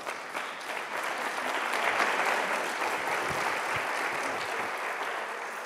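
Audience applauding, swelling over the first couple of seconds and fading away near the end.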